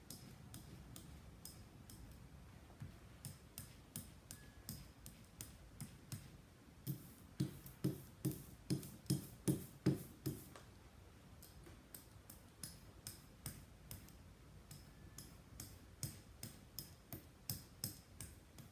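Hand ink roller (brayer) worked back and forth over an inked linocut block, making a light tick with each stroke, about two to three a second. Midway there is a run of about ten heavier, deeper knocks as the rolling gets firmer.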